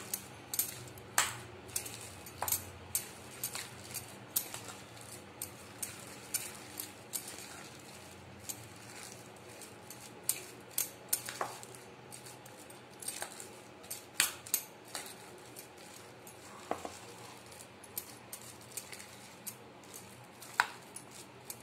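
A hand mixing coarse ground chana dal paste in a bowl, with irregular sharp clicks and clinks every second or so from the glass and gold bangles on the working wrist knocking together and against the bowl. A faint steady low hum runs underneath.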